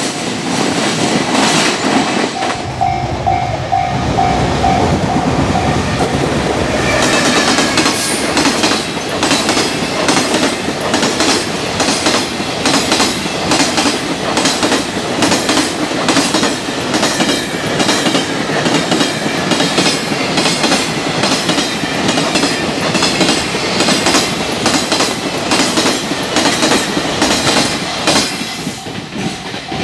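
A Japanese level-crossing warning bell dings rapidly for a few seconds. Then a long container freight train passes at speed, its wheels beating over the rail joints in a fast, even clatter. The crossing bell starts dinging again near the end.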